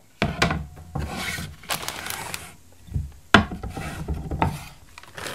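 Plastic snack bag crinkling as white-fudge-covered pretzels are poured out of it into a glass bowl, with several sharp clatters among the rustling.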